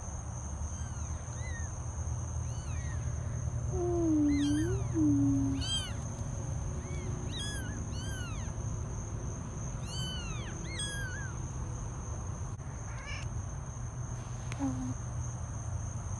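Newborn kittens mewing: many short, high-pitched mews that rise and fall, coming in clusters, with one lower, louder call about four seconds in.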